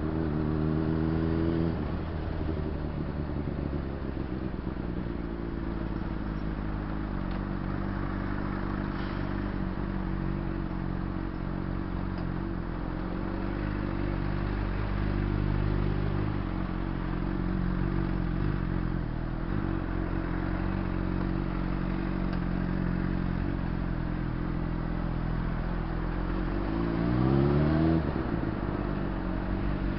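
Honda CBR600RR's inline-four engine running steadily at low revs in stop-and-go riding, then revving up once near the end.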